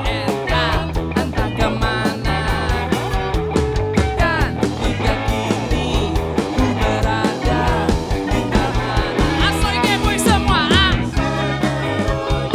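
Live rock band playing with a steady beat, a man singing lead over guitar and the band.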